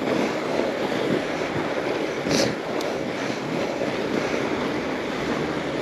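Mountain bike rolling downhill on a groomed trail: a steady rush of tyre noise and wind on the microphone, with one brief scrape about two and a half seconds in.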